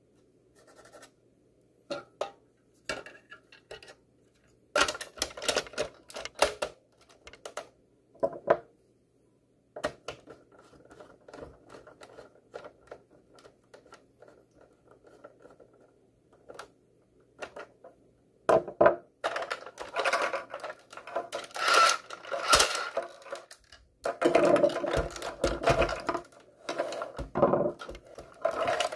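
Hard plastic parts of a Nerf Vulcan EBF-25 blaster clicking and clattering as they are handled and fitted. Scattered knocks come first, and the clattering turns almost continuous in the last ten seconds.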